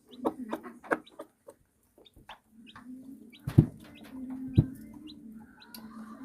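Chicken clucking in a quick run of short notes, with short high peeps scattered through. Two loud thumps come about three and a half and four and a half seconds in.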